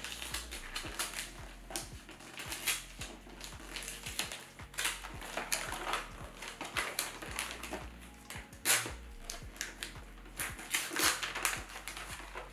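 Wrapping paper crinkling and rustling in irregular crackles as a gift is carefully peeled open by hand, over soft background music.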